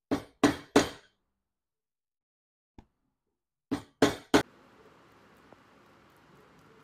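A cobbler's hammer drives nails into a leather boot sole in two quick sets of three sharp strikes, a few seconds apart.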